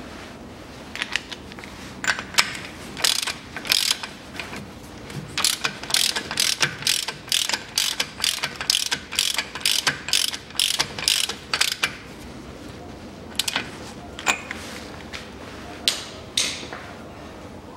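A socket ratchet clicking as it runs the front drive-shaft nut down onto the wheel hub. It gives a few scattered clicks at first, then quick runs of clicks from about five to twelve seconds in, and a few more clicks near the end.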